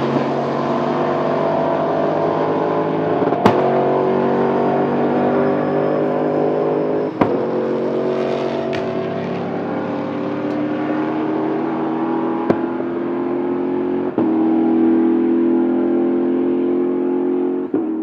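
V8 touring race cars, among them a Lexus IS-F and a Mercedes C63 AMG, accelerating away hard, their engine note climbing steadily. Sharp cracks come every few seconds as they shift up through the gears.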